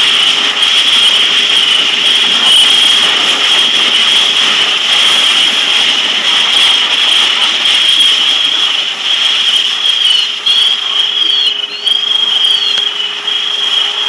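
Loud, steady rushing of a propane tank fire burning while fire hose fog streams spray onto it. The sound becomes less even and a little quieter in the last few seconds as the flame is knocked down.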